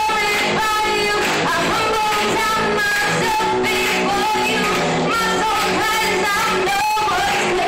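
A woman singing a slow worship song into a microphone over instrumental accompaniment, holding long notes that glide between pitches.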